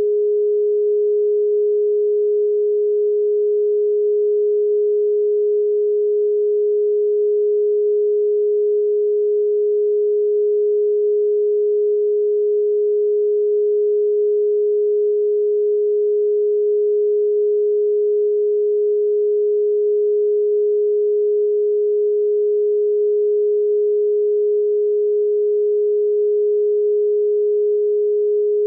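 A single steady pure sine tone at one unchanging mid pitch, a meditation solfeggio tone.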